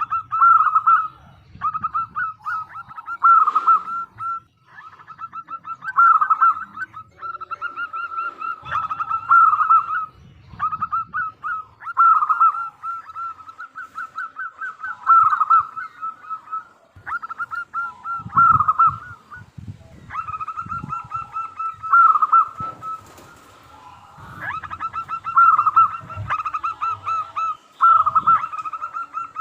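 Local zebra dove (perkutut) cooing: repeated phrases of quick staccato coos, a new phrase every two to three seconds.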